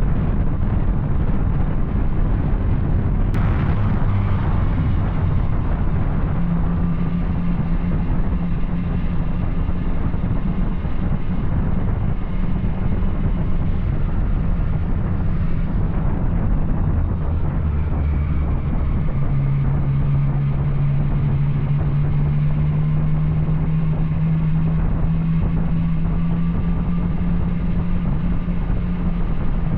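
Yamaha Tracer 900's three-cylinder engine running through an Arrow aftermarket exhaust while riding, its note holding at a few different steady engine speeds. A single sharp click about three seconds in.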